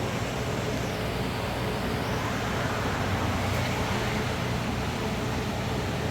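Steady background noise: an even hiss with a low hum underneath, unchanging throughout, with no distinct knocks or clicks standing out.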